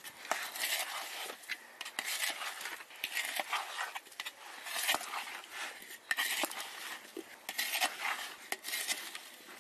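Wooden spoon stirring whole amla (Indian gooseberries) coated in spice powders and mustard oil in a large metal bowl. It makes repeated wet scraping swishes about once a second, with light clicks of the spoon and fruit against the bowl, as the pickle masala is mixed in.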